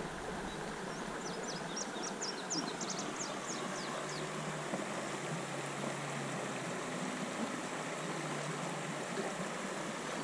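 Steady rush of shallow river water running over a riffle. A bird sings a quick series of high, falling notes between about one and three and a half seconds in.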